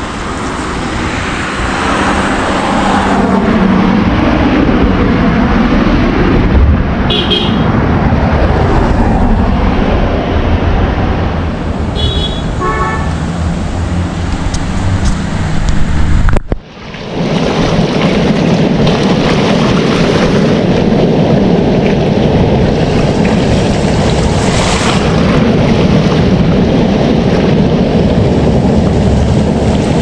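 Roadside traffic noise under heavy wind on the microphone, with a short vehicle horn toot about twelve seconds in. The sound drops out sharply for an instant just past halfway, then a steady loud rush continues.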